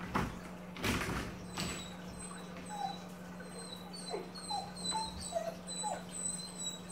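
A big puppy whimpering at a baby gate: a string of short, high-pitched whines and small falling squeaks. Three knocks in the first two seconds as the puppy bumps against the gate.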